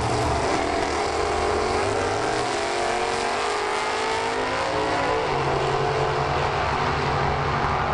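Super Sedan drag cars leaving the start line and accelerating down the strip at full throttle, the engine note climbing steadily for several seconds and then dropping back about five seconds in.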